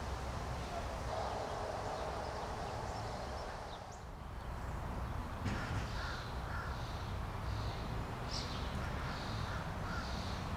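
Steady low rumble of street traffic, then, after a cut about five and a half seconds in, birds calling in short repeated notes over the hum.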